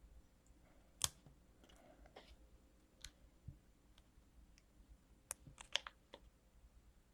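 Faint handling of paper and small adhesive craft eyes on a table: a few sharp isolated clicks and taps, the loudest about a second in and a cluster between five and six seconds.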